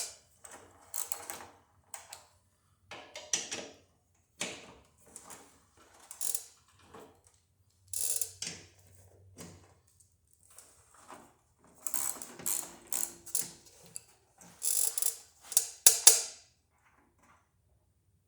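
Hand socket ratchet clicking in short spells of strokes, with a few clanks of metal parts, falling quiet near the end.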